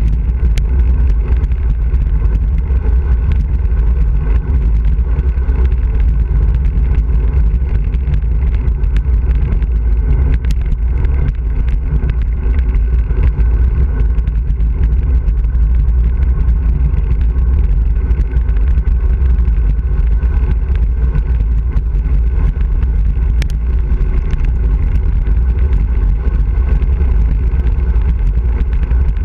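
Wind rushing over the microphone of a camera riding on a road bike during a fast downhill descent: a loud, steady low rumble with road noise underneath and a few light ticks.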